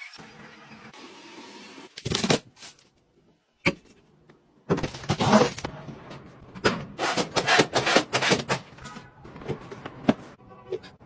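A quick run of clicks, knocks and clatter as the doors of a storage cabinet are opened and shut, loudest in the middle. Two sharp single knocks come before it.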